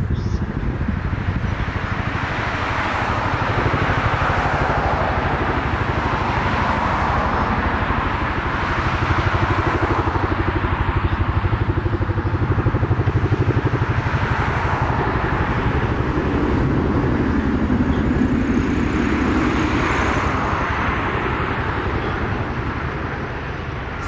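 Bolliger & Mabillard hyper coaster train on an empty test run: a steady rumble from the steel track that swells and eases several times.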